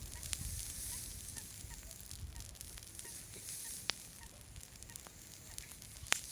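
Small campfire crackling: scattered sharp pops, a few louder ones standing out, over a faint steady hiss.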